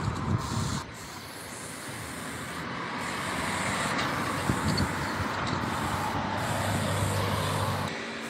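Aerosol spray-paint can with a fat cap hissing in a steady spray; the hiss drops a little under a second in and slowly builds back.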